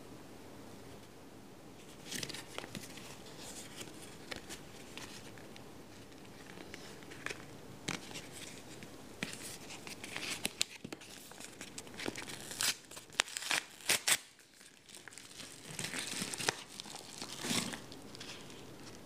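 A postal mailer envelope crinkling and tearing as it is handled and opened by hand: bursts of rustling, with the loudest sharp crackles a little past the middle.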